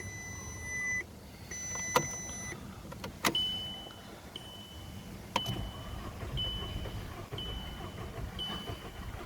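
Car warning chimes: a steady beep twice in the first few seconds, then a higher beep repeating about once a second, with a few sharp clicks in between and a low rumble underneath from about halfway.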